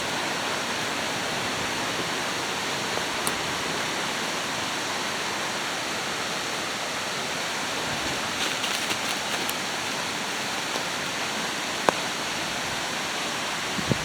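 Rain-swollen creek pouring over a waterfall: a steady rush of water. A few faint ticks come about two-thirds of the way through, and one sharp click comes near the end.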